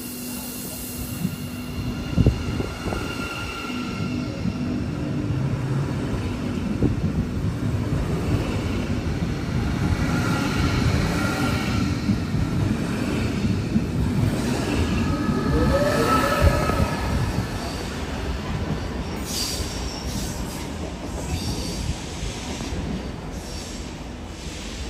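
Train rolling slowly over the station tracks: a low rumble with knocks from the wheels, and the wheels squealing on the rails in several drawn-out high tones, loudest about two-thirds of the way through.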